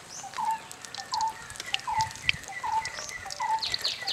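A bird repeating a short falling call about twice a second, joined near the end by a quicker run of high falling chirps. Underneath is a faint crackle of pakoras frying in hot oil.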